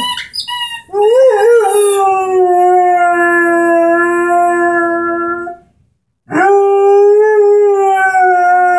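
Airedale terrier howling: a few short whining notes, then a long, steady howl, a brief break about six seconds in, and a second long howl.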